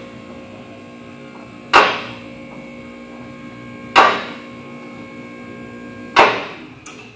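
Eagle Equipment Mobileman mobile column lift raising a pickup truck bed: its power unit hums steadily while a sharp metallic clack rings out three times, about two seconds apart, as the carriage ratchets past its safety lock positions.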